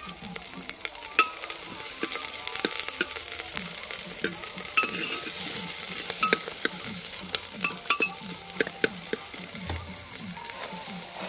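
Sliced onions sizzling in hot oil in a metal pot over a wood fire, stirred with a steel ladle that knocks and scrapes against the pot many times.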